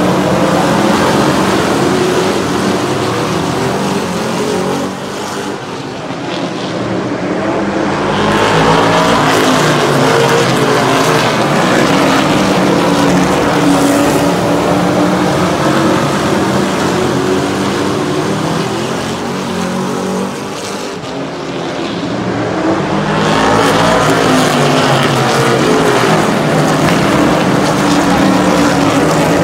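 A pack of super truck race trucks running laps at racing speed, their engines loud and rising and falling in pitch as they pass. The engine noise fades twice and swells again as the field comes back by.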